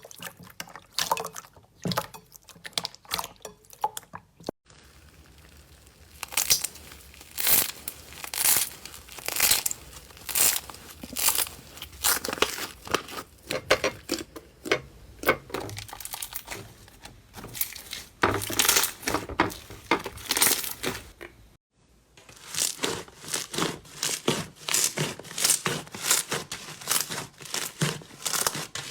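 Slime being squeezed, poked and stretched by hand: rapid runs of crackling, popping clicks. The sound breaks off abruptly twice, about four and a half seconds in and again about seven seconds before the end, where one clip cuts to the next.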